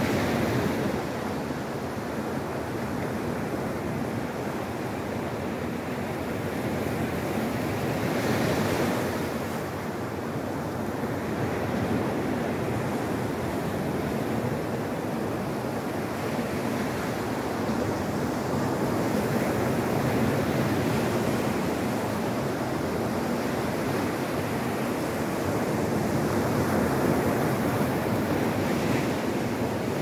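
Sea waves breaking and washing up a pebble beach: a continuous rush of surf that swells as each wave breaks, about every ten seconds.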